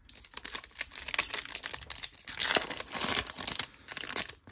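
A Topps Stadium Club trading-card pack wrapper crinkling and tearing as it is pulled open by hand: a dense, uneven crackle that is loudest a little past the middle.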